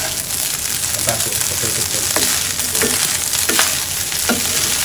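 Fried rice sizzling in a wok while a wooden spatula stir-fries and tosses it, scraping and tapping against the pan about once or twice a second.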